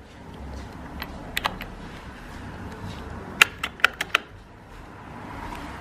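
Scattered sharp clicks and taps of hard objects: a few about a second in, then a quick run of five or six about three and a half seconds in.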